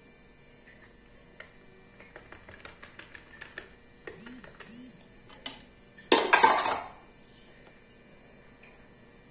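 A spoon clinking and scraping against a bowl as whipped cream is scooped onto a cake layer: a run of light clicks, then one louder clatter lasting under a second about six seconds in.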